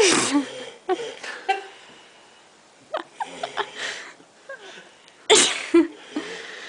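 A sleeping man snoring in loud snorting bursts: a big snort at the start and another about five seconds in, with smaller wheezy breaths and snorts between.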